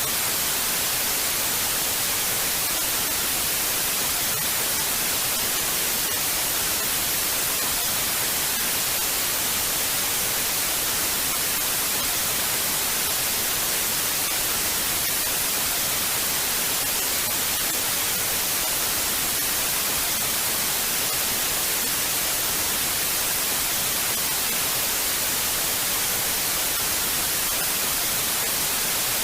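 Television static: a steady, unbroken hiss of white noise, brightest in the high end.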